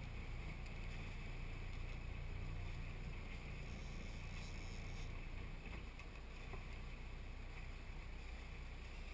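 Sailboat under way: a steady low hum with an even rushing noise of water and wind.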